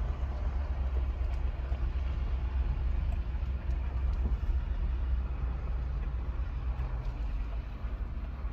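Pickup truck rolling slowly along a rough dirt road: a steady low engine and tyre rumble with a few light clicks and rattles.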